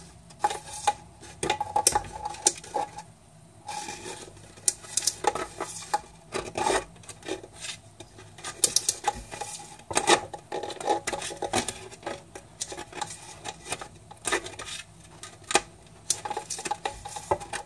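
A tortoise's claws clicking and scraping on a plastic hedgehog exercise wheel as it walks, with the plastic clattering in irregular knocks.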